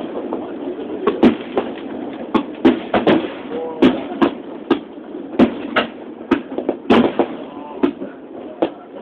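Fireworks bursting overhead in a string of sharp bangs and cracks at uneven intervals, about one or two a second, over the murmur of a watching crowd.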